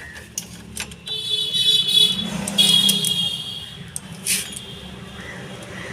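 A wrench and metal parts clicking and clinking as the gear-lever bolt of a Suzuki Gixxer motorcycle is tightened. A high-pitched whining tone sounds twice, in the first half.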